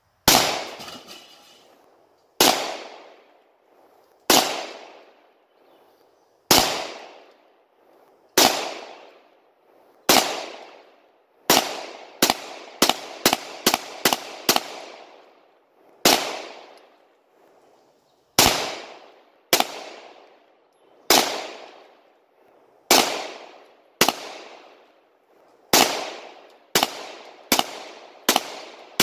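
Handgun shots, about two dozen, each report trailing off in a long echo. They mostly come one at a time every second or two, with a quick string of six or seven near the middle.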